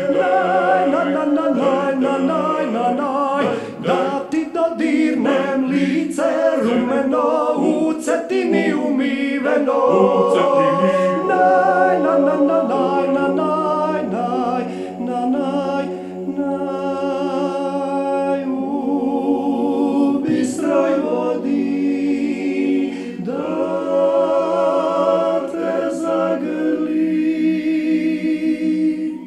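Male klapa, a Croatian a cappella vocal group, singing in close multi-part harmony with no instruments, settling into one long held chord near the end.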